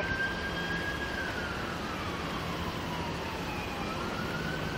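Police car siren wailing, its pitch sliding slowly down and then rising back up near the end: backup units coming with lights and siren.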